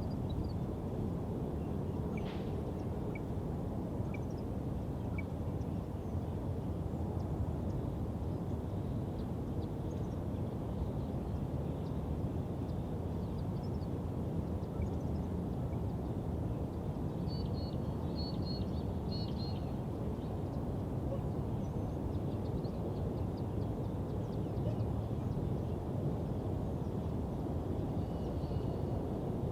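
Quiet suburban park ambience: a steady low-end city rumble with scattered bird chirps, including a few quick chirp phrases about two-thirds of the way through.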